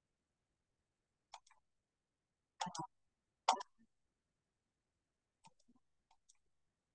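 Computer mouse clicking: a handful of short, sharp clicks, a close pair near the middle and the loudest just after, with fainter clicks near the end.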